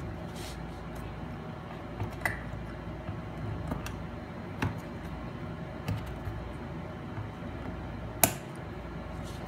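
Scattered light clicks and taps of a plastic suction-cup tool being gripped, pulled and reset on a laptop's aluminium bottom case, with the sharpest click near the end.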